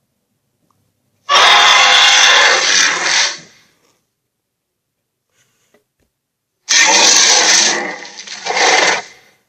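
Two loud, harsh monster roars, each lasting about two to three seconds, with a gap of a few seconds between them; the second one dips and then swells again near its end.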